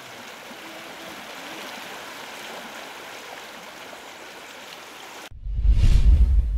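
Muddy floodwater of an overflowing creek rushing steadily. About five seconds in this cuts off abruptly, replaced by a louder logo sound effect: a whoosh over a deep bass hit.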